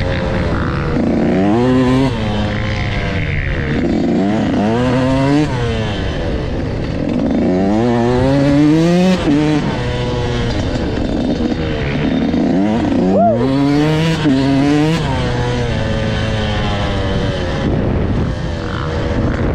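Dirt bike engine under way, its pitch climbing and dropping again many times as the throttle is opened and eased off.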